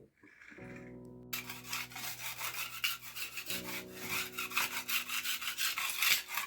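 Fast, repeated scraping or rasping strokes over a steady low hum that drops out briefly twice.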